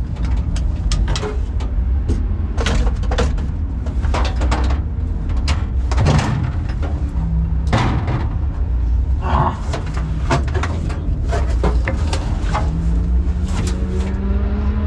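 A race car's 4-litre six-cylinder engine idling with a steady low rumble while the car stands still. Over it comes a run of sharp clicks and knocks as the driver moves about in the cockpit.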